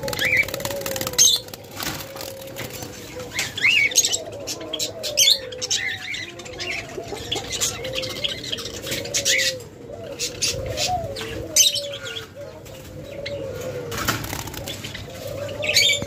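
Caged diamond doves cooing in low, wavering calls, with sudden bursts of wing-flapping as birds are caught by hand in the wire cage, and short higher chirps in between.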